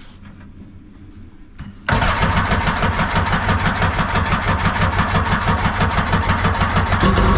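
A newly built jet boat's engine fires up on its first start about two seconds in, catching abruptly and then running steadily with a fast, even beat. Its note changes near the end.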